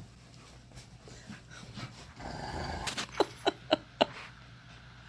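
Dog play sounds: a brief low growl about two seconds in, then four short, sharp yips in quick succession.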